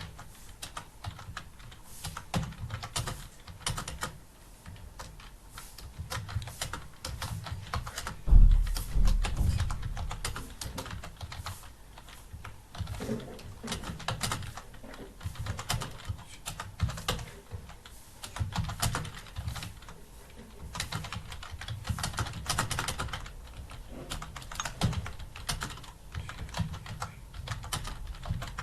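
Continuous fast typing on a computer keyboard: a dense, irregular patter of keystrokes, with a dull thump about eight seconds in.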